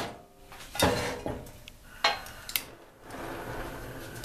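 A metal kettle knocking against the iron grate of a gas stove several times, then a gas burner lit and hissing steadily from about three seconds in.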